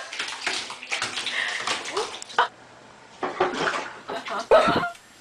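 A cat's paws scrabbling and sliding on a hard bathtub surface, in short scraping bursts.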